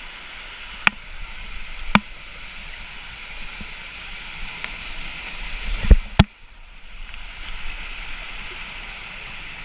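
Waterfall rushing steadily. Two sharp clicks come about one and two seconds in, and two loud knocks close together about six seconds in.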